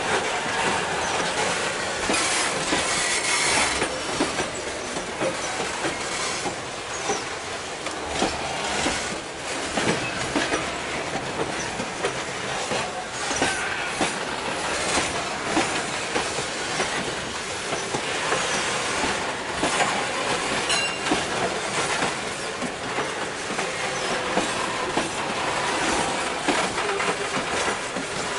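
Freight train wagons (hopper cars and boxcars) rolling past close by: steel wheels clatter over the rail joints in a steady rumble, with a brief faint wheel squeal a couple of seconds in.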